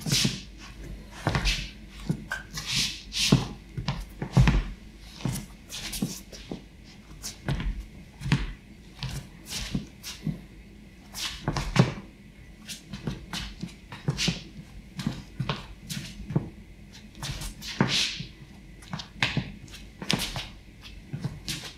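Footsteps of soft high-top training shoes on a wooden parquet floor during footwork drills: irregular stepping thuds and sole scuffs as a person shifts forward, back and to the sides, about one or two a second.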